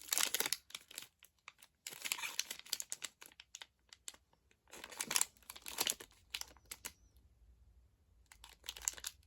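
Crinkly plastic snack packaging being handled, in four short crackling bursts with gaps between.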